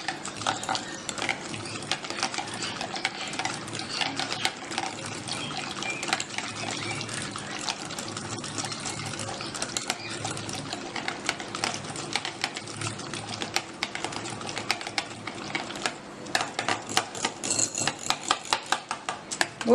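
Yogurt being beaten by hand in a container: fast, continuous clicking and slapping strokes of the beater against the sides, growing more distinct and regular near the end.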